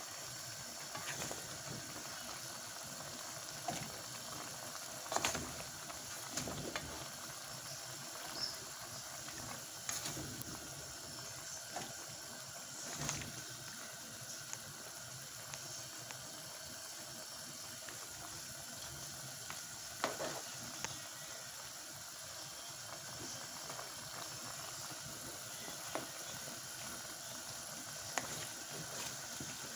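Chicken feet adobo sizzling and bubbling in its sauce in an aluminium pan, with a few sharp clinks and knocks scattered through it.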